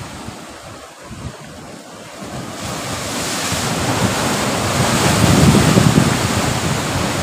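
Sea surf rushing against the rocks of a cliff, swelling from about two and a half seconds in and staying loud, with wind buffeting the microphone.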